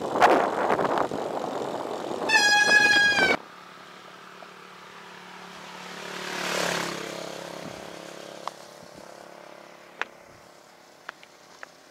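Wind rushing on the microphone of a moving bicycle camera, with a single vehicle horn blast about two seconds in that lasts about a second and cuts off abruptly. A few seconds later a vehicle passes by, swelling and fading, followed by a few faint clicks.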